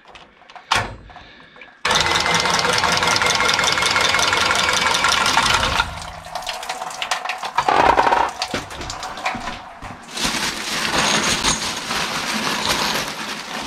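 Milwaukee M12 cordless copper tubing cutter running as it spins around a copper water pipe, in two runs: one starting suddenly about two seconds in and lasting about four seconds, and another near the end.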